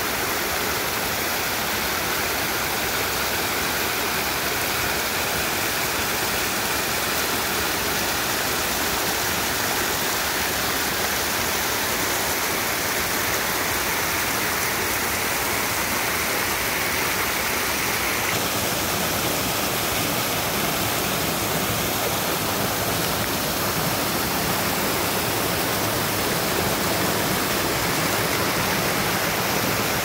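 Storm runoff rushing down a normally dry woodland ravine, pouring over small rock ledges and cascades in a steady splashing rush of water.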